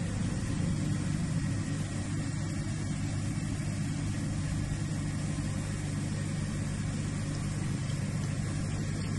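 A steady low mechanical hum over an even hiss.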